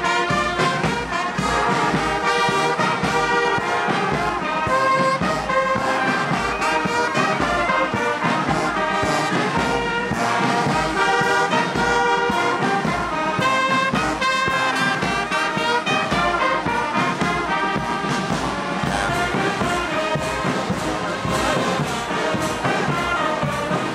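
Marching brass band playing: trumpets and sousaphones carry a melody of held and moving notes over a steady, regular drum beat.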